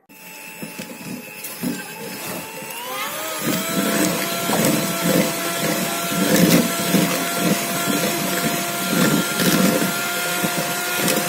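Electric hand mixer (Philips) running with its beaters in a steel pot of cream, whipping it. The motor whine rises in pitch about three seconds in as it speeds up, then runs steadily.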